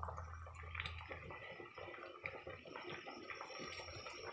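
Pork sinigang soup with taro and greens bubbling at a rolling boil in an open pressure-cooker pot: a busy crackle of popping bubbles. A low hum stops about a second in.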